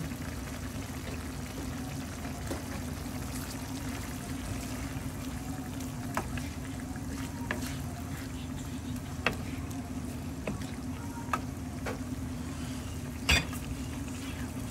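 Chicken adobo simmering in a pan under a steady low hum, with a few light clicks and knocks of a utensil against the pan, the loudest near the end.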